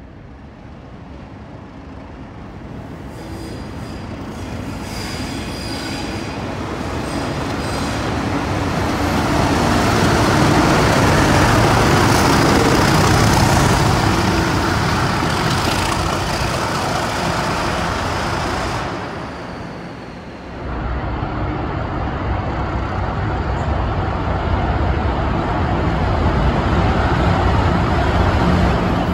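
Two Class 37 diesel locomotives, English Electric V12 engines, approaching and passing close by, growing steadily louder to a peak about ten to fourteen seconds in. After a cut about twenty seconds in, their engines run steadily.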